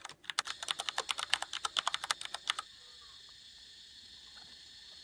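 A fast, irregular run of sharp clicks, about ten a second and typing-like, that stops about two and a half seconds in, leaving a faint steady hiss.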